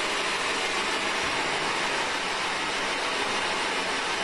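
Radio static from a spirit box scanning through stations: a steady hiss with no voice coming through.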